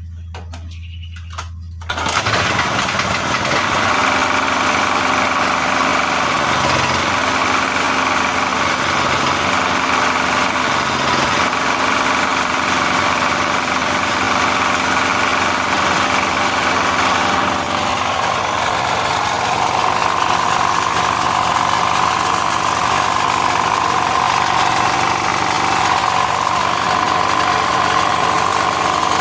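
Small portable generator engine starting about two seconds in and then running steadily, its spark plug gap just reset to cure a misfire. Its tone shifts slightly about two-thirds of the way through.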